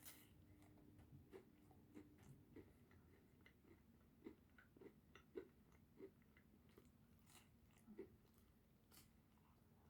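Faint chewing of pizza, with scattered small mouth clicks at an irregular pace.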